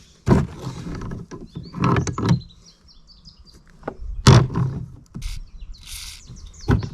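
Several separate knocks and scrapes of hand work on a push lawnmower's wheel and its gunked-up axle shaft, which is being worked loose.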